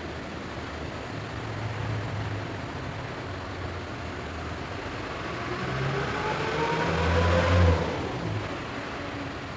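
A road vehicle passing by, its engine note rising as it approaches, loudest about seven and a half seconds in, then fading quickly.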